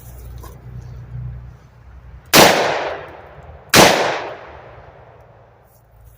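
Two revolver shots about a second and a half apart, each followed by a long echoing tail that dies away over about a second.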